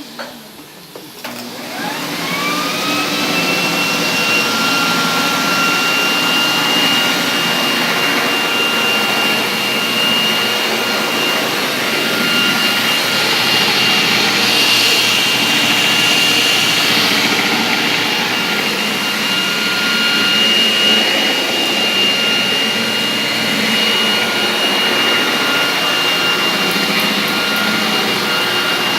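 Walita 400T floor polisher-vacuum's motor switched on, its whine rising as it spins up over about two seconds, then running steadily with a high whine over rushing air.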